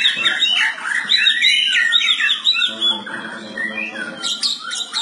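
Oriental magpie-robin (kacer) singing: a fast run of repeated arching whistled notes, then a lower, rougher passage about three seconds in, then quick sharp notes near the end.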